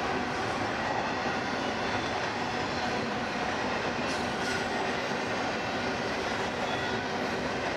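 Union Pacific freight train rolling steadily past, its cars' wheels running on the rails.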